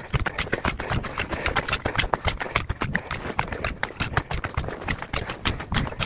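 Footsteps hurrying along a dry sandy trail strewn with leaf litter, a quick, unbroken run of crunches and rustles.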